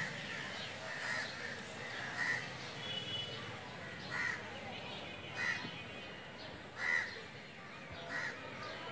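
A bird calling outdoors in short, separate calls, about seven of them at uneven intervals of a second or more, the loudest about seven seconds in, over a steady faint background hiss.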